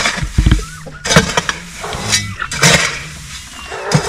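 A hoe scraping and digging through loose litter on a chicken coop floor, in repeated strokes about one a second.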